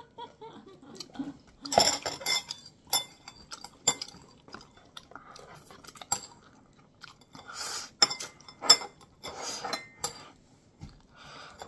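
Noodles being slurped and chewed close to the microphone, in several separate bursts, with sharp clicks of chopsticks against a ceramic bowl.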